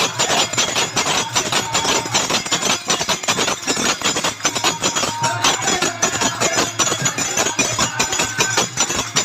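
Kirtan music, mostly fast percussion: metallic clashing and drum strokes beating several times a second, with short held melody notes about halfway through.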